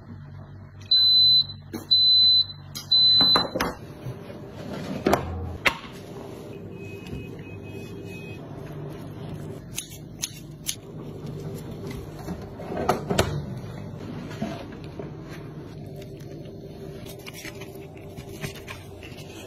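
Countertop electric oven beeping three times, about a second apart, as a low running hum stops with the last beep; later come a few sharp knocks and a short run of fainter beeps.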